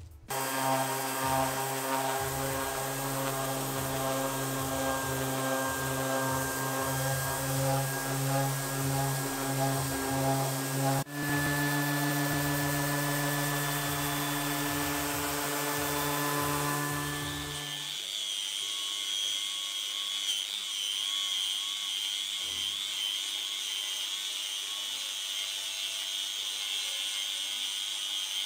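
Electric random orbital sander running on a solid wood tabletop with 240-grit paper: a steady hum that steps slightly higher after a click about eleven seconds in. From about eighteen seconds an angle grinder with an abrasive disc takes over, grinding a steel table leg clean with a high wavering whine.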